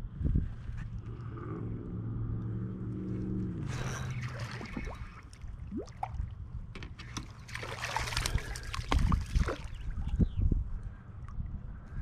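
Water sloshing against a fishing kayak, with knocks and clicks from the hull and gear. For the first few seconds a steady mechanical whirr is heard, which drops in pitch and stops about four seconds in.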